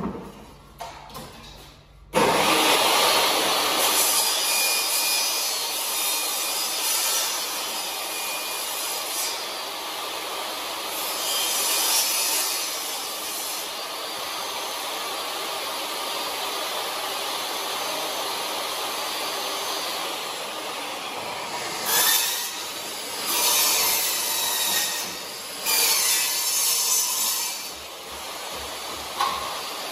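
A loud steady rushing noise that starts suddenly about two seconds in and keeps on, swelling louder several times near the end.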